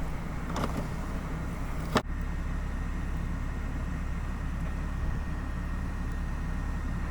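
Steady low rumble of a motor vehicle running, with a single sharp click about two seconds in.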